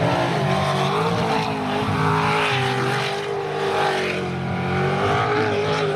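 Jet sprint race boat's engine running hard at high, nearly steady revs, with a slight dip and recovery in pitch midway.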